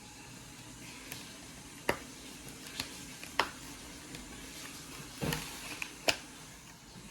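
A handful of short, sharp clicks and taps at irregular intervals over a steady low hum.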